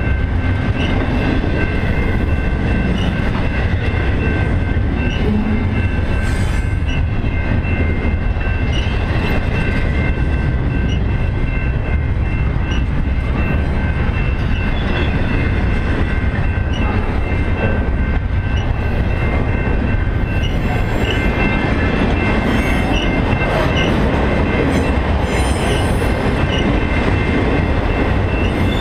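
Freight train cars, double-stack intermodal well cars and then autoracks, rolling past close by: a steady loud rumble of wheels on rail, with a steady high-pitched squeal over it.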